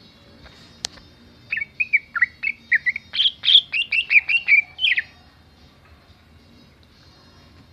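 Green leafbird (cucak ijo) singing a fast run of short chirping, sliding notes for about three and a half seconds, starting about a second and a half in and ending about five seconds in. A single sharp click comes just before the song.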